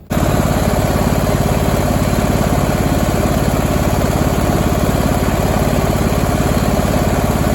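Small gasoline lawn-tractor engine running steadily with an even, rapid firing beat. It is the engine that had stopped running, now going again after repair. The sound cuts in abruptly at the start.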